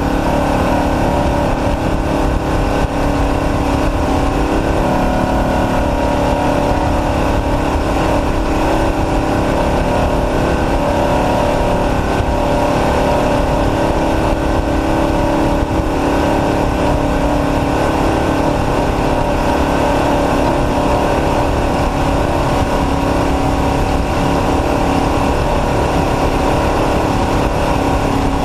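Off-road race truck's engine running hard at a steady pitch, with a constant rush of noise beneath it.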